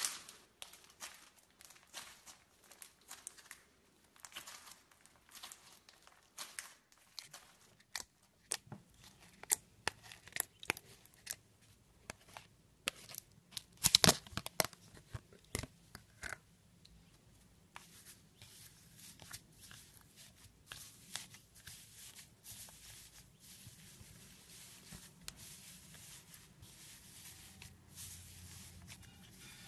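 Floam, slime packed with polystyrene foam beads, crackling and popping as hands squeeze it. About halfway through, a clear plastic bag crinkles as white foam beads are tipped from it into a plastic tub; this is the loudest part. After that comes a softer, steady crackle of a hand pressing into the loose beads.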